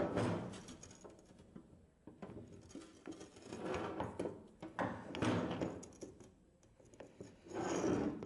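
Metal engine parts being handled and set down on a workbench: irregular knocks, scrapes and clatter with short quiet gaps.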